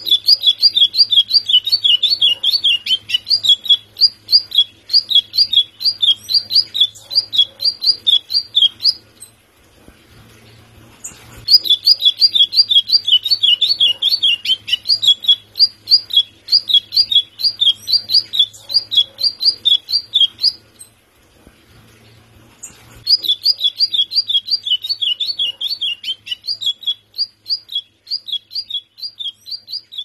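White-throated seedeater (golinha) singing: a long song of quick, repeated high notes, about three to four a second, in three bouts broken by pauses of two to three seconds.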